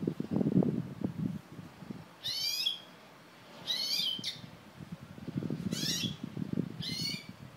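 A mule finch (canary–finch hybrid) singing four short, high, twittering phrases about a second apart. Under the first second and again in the latter half there is a low rumbling noise.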